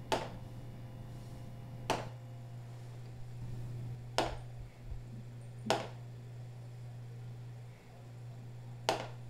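Plastic DVD cases clicking against each other and the shelf as a hand pushes the one on the end of the row back upright: five sharp taps a second or two apart, over a steady low hum.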